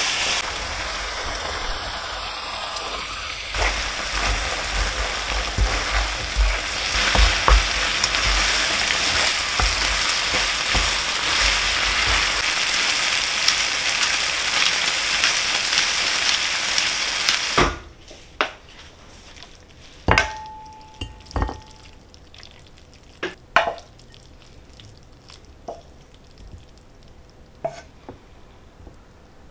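Smoked duck, noodles and vegetables sizzling in a hot frying pan as they are tossed with chopsticks. The sizzle cuts off suddenly a little past halfway. After that come a few light clicks and taps of chopsticks against a ceramic bowl, one with a brief ring.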